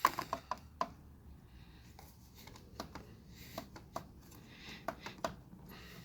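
Small irregular metal clicks and taps as the battery's negative terminal nut is loosened with a 10 mm ratcheting wrench and the ground clamp is worked off the post.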